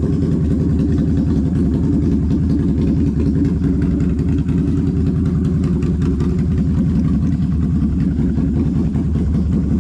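ATV engine running steadily, a dense low pulsing that holds an even pitch and level throughout, with no clear revving.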